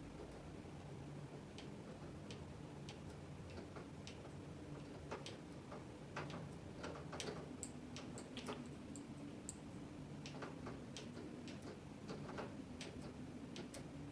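Irregular light clicks and taps from a thumb joystick module being worked by hand, over a faint steady hum.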